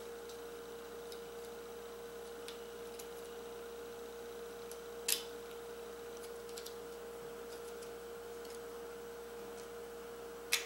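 Steady faint electrical hum with a few small plastic clicks and taps, the clearest about five seconds in and another near the end, as old AA batteries are taken out of an R/C truck's receiver battery holder.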